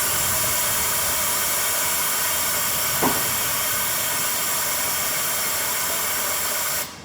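Compressed air hissing steadily from the tire changer's pneumatic system as a tool is released and moved. It starts suddenly and cuts off just before the end.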